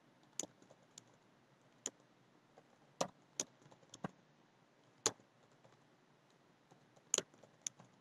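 Computer keyboard keystrokes: about a dozen faint, sharp clicks at irregular intervals while short terminal commands are typed.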